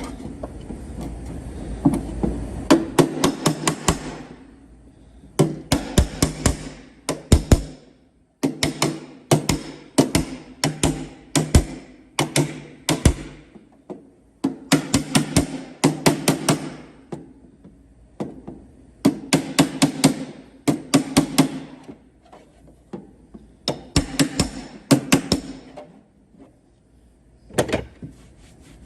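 Body hammer striking a car's sheet-metal quarter panel in quick bursts of several blows, a burst every two seconds or so, the panel ringing under the strikes: hammer-and-dolly work to smooth out a dent.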